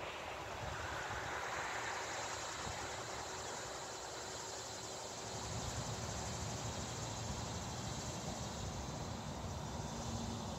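Steady outdoor ambience: a continuous high insect buzz over a low rumble.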